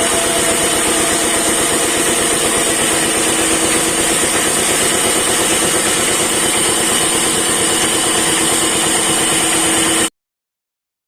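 Wood-cutting machine's motor running steadily with a fast even pulse, cutting off abruptly about ten seconds in.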